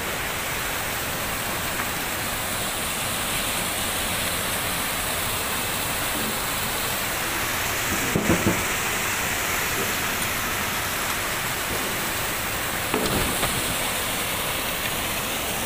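Steady rush of whitewater: river water pouring over a broken stone weir and through rocky rapids, a constant even roar-free hiss with no breaks.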